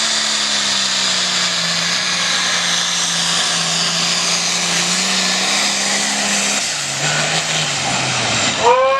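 Engine of a pulling truck or tractor running hard at full throttle under the load of the sled. Its pitch sags slowly, then drops lower about seven seconds in and keeps falling.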